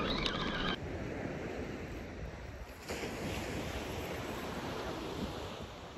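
Ocean surf washing steadily onto the beach, with wind buffeting the microphone. A brief burst of clicks at the very start.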